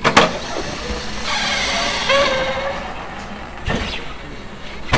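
Pneumatic bead breaker on a tire-changing machine working a truck tire on a steel rim: a knock, then air hissing for about a second and a half with a short squeak in it, and another knock near the end.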